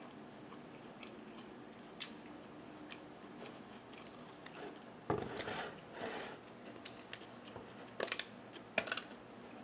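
Chewing a mouthful of food, soft and close, with faint wet mouth sounds. Near the end come a few sharp clicks as the cap of a plastic water bottle is opened.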